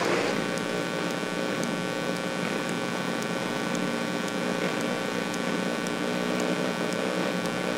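Engines of winged micro sprint race cars running at a low, even speed under caution: a steady engine note that holds the same pitch throughout.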